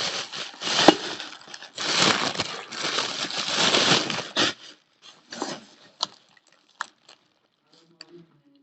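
A person biting and chewing lumps of chalk: dense, gritty crunching for about four and a half seconds, then a few scattered soft crunches and clicks.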